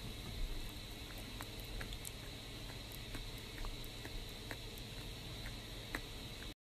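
Baby goat nibbling and mouthing right at the microphone: soft, irregular clicks and smacks of its lips over a steady hiss, cutting off suddenly near the end.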